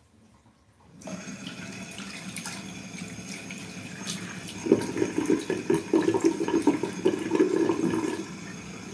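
Bathroom tap turned on about a second in, water running into the sink, with a louder, splashier stretch from about five to eight seconds in.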